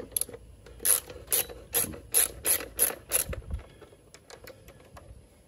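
Small hand ratchet with a 5/16 hex bit clicking in about seven quick back-and-forth strokes as it backs out a bolt on a motorcycle's breather cover, followed by a few faint ticks.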